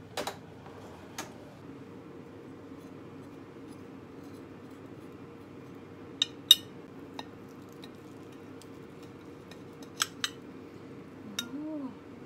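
Metal knife clinking against a glass baking dish while cutting a steamed sweet potato: scattered sharp clinks, the loudest about six and a half seconds in, with a knock right at the start.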